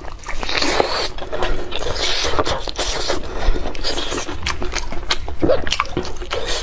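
Close-miked eating sounds: a person biting and chewing a sausage, with dense, irregular wet clicks and smacks of the mouth.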